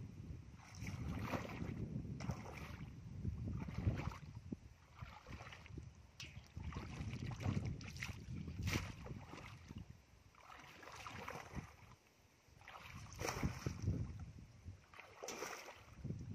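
Muddy water splashing and sloshing in irregular bursts as a metal basin is scooped through shallow water and the water is flung out, with feet wading through the mud. A low wind rumble on the microphone runs underneath.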